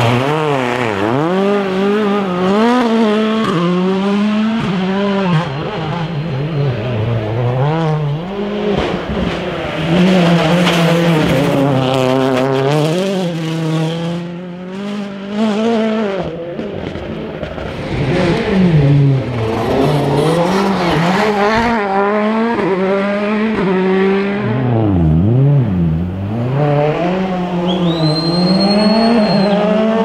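Rally cars' engines revving hard and dropping off again and again, pitch rising and falling as they brake, change gear and accelerate through corners, one car after another. A high whistle rises and holds near the end.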